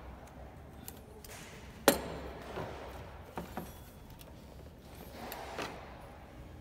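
Hand tools being handled in an engine bay: one sharp metallic click about two seconds in, then a few lighter clicks and clinks with some rustling.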